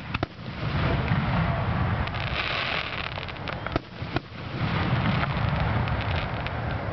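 Aerial fireworks shells bursting: sharp bangs just after the start and again about four seconds in, with a rolling rumble of booms and crackle between and after them.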